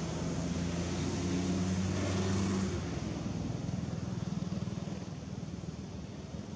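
A motor engine running nearby, a steady low hum that is loudest about two and a half seconds in and then drops away.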